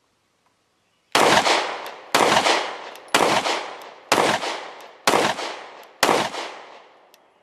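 Bul Armory Axe C Hatchet 9mm pistol firing six shots, evenly spaced about a second apart. Each shot is followed by an echo that dies away over most of a second.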